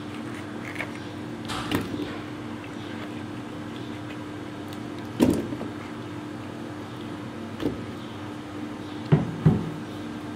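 Raw potato chunks dropped into a pan, landing as short knocks: about five, the loudest about five seconds in and a close pair near the end. A steady low hum runs underneath.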